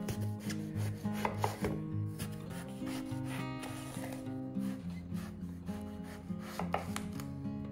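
Food-preparation sounds: rubbing and a few sharp knife cuts on a cutting board, over soft background music.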